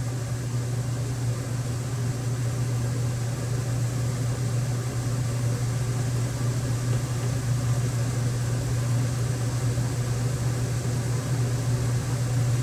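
A steady low mechanical hum over a constant background noise, unchanging throughout.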